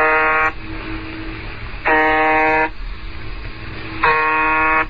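Shortwave radio recording of 'The Buzzer', the Russian station UVB-76: three harsh buzzes, each a little under a second long and about two seconds apart, with radio hiss and a faint steady tone between them.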